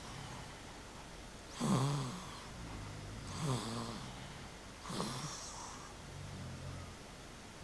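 Two sleepers snoring: three loud snores come about a second and a half apart, each with a breathy hiss and a pitch that rises then falls. A quieter, lower snore drones between them.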